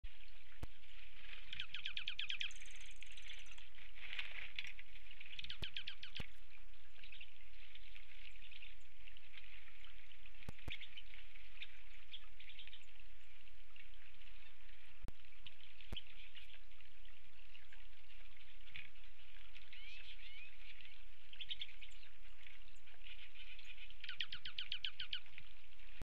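Pine siskins chattering at a feeder: continuous high twittering with buzzy trills about two seconds in, around five seconds and again near the end, plus a few sharp clicks.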